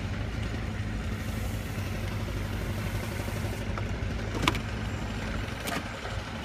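A steady low engine hum runs throughout, with two sharp clicks, one about four and a half seconds in and another just before six seconds.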